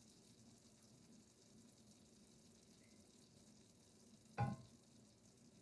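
Faint, steady hiss of a pan of chicken in stock, with a single sharp clatter about four seconds in.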